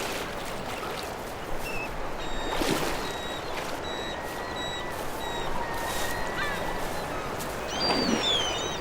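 Steady rush of a salmon river with birds calling over it in short, high, thin calls and brief gliding notes.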